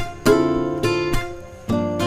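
Background music: acoustic guitar strumming chords, a new chord struck about every half second and left ringing.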